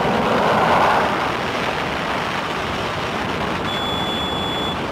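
Concorde's reheated Olympus engines at takeoff power during the takeoff roll, a loud steady rushing noise that is loudest in the first second. About three and a half seconds in, a high electronic beep sounds for about a second: the beep that goes with the V1 call on takeoff.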